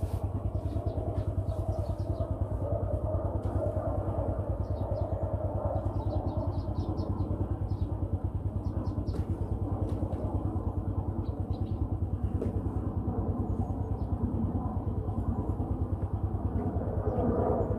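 An engine running steadily with a fast, even chug, likely a small machine idling close by. Short high bird chirps sound over it now and then.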